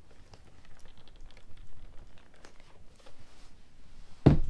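A plastic Funko Soda can being squeezed and twisted by hand, giving small scattered plastic clicks and crinkles, then one loud knock near the end.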